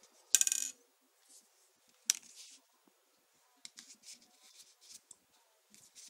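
Thin metal lock picks from a credit-card-sized pick set clinking down onto a hard surface with a ringing clatter about a third of a second in and again at about two seconds, followed by lighter clicks and rattles as they are handled.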